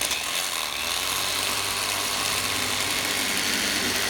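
Electric fillet knife running steadily with a constant motor buzz as its reciprocating blades cut along the back of a bullhead.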